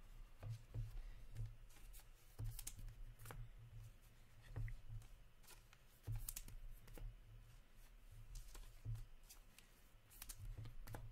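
Trading cards being handled by hand: scattered soft clicks and rustles of card stock and plastic sleeves, over a low steady hum.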